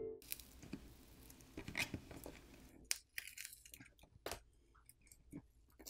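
Faint peeling and crackling of battery adhesive as a plastic pry tool works under the Asus Zenfone 7 Pro's battery, its adhesive softened by heat. A continuous crackle for about three seconds, then scattered small clicks and ticks.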